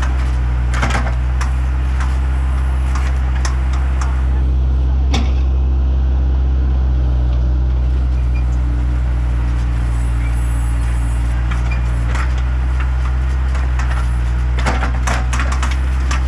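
Bobcat skid-steer loader's diesel engine running steadily while backfilling a trench, with scattered clanks and knocks, one sharp one about five seconds in and several close together near the end.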